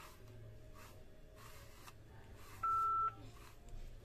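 A single electronic beep: one steady high tone of about half a second, a little before three seconds in. It sounds over faint, repeated strokes of a comb drawn through a wig's hair.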